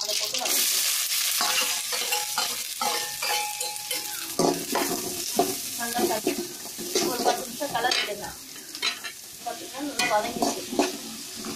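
Food sizzling in hot oil in a kadai while being stirred, with repeated scrapes and knocks of the stirring utensil against the pan from about four seconds in. The sizzle is loudest in the first couple of seconds.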